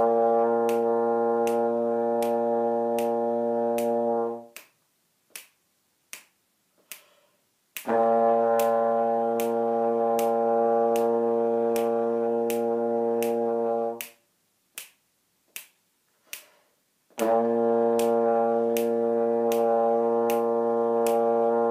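Trombone holding a low B flat in long steady notes: the first ends about four and a half seconds in, the second runs from about eight to fourteen seconds in, and the third starts about seventeen seconds in and runs on. A steady click keeps the beat throughout and is heard alone in the rests.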